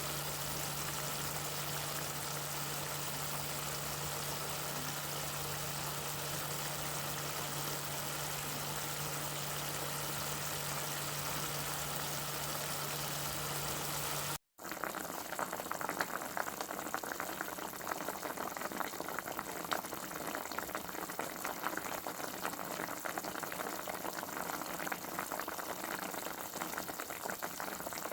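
Cooking sounds: a pot of liquid boiling with a steady hiss and a low hum. After an abrupt cut about halfway through, it changes to a denser crackling and bubbling.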